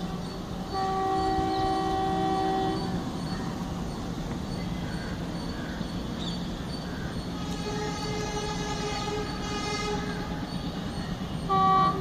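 Indian Railways diesel locomotive horn from a train that is not yet in sight: a chord blast of about two seconds near the start, fainter horn tones later, and a short loud blast just before the end, over a steady low rumble.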